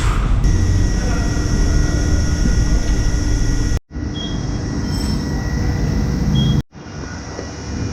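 Tyre-shop machinery running steadily with a thin high whine over a noisy mechanical rumble, in three stretches cut together with sudden breaks.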